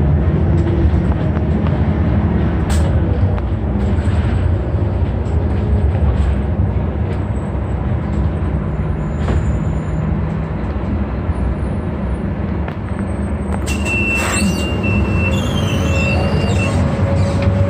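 Inside a moving Transjakarta city bus: steady engine and road rumble. A high whine starts with a sharp click about fourteen seconds in and lasts about three seconds.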